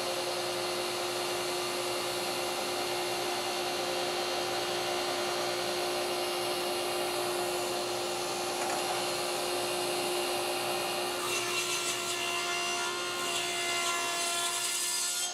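Table saw ripping a wet, green elm branch: the spinning blade makes a steady hum over continuous cutting noise. About eleven seconds in, the sound changes as the blade clears the wood.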